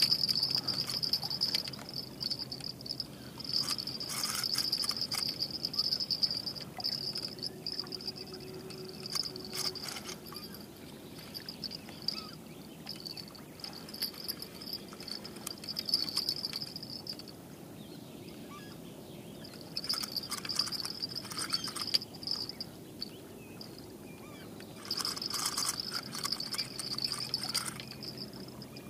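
An insect trilling in repeated bouts of two to seven seconds, a high-pitched buzzing song that stops and starts again several times.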